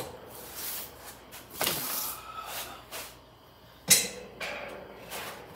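Handling knocks and scrapes as a portable drum shop fan is moved aside, with a swish near two seconds in and a sharp knock about four seconds in, the loudest sound.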